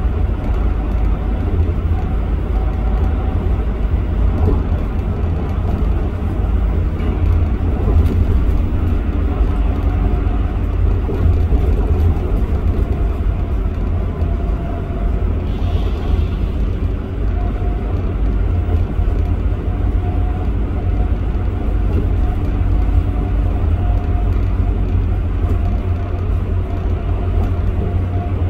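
Steady low drone of a bus's engine and tyre noise, heard from inside the cabin while cruising on an expressway, with a faint steady whine above the rumble.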